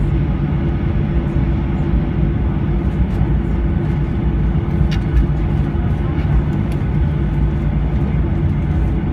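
Steady rumble and hum of a Boeing 737-800's jet engines, heard inside the cabin while the airliner taxis.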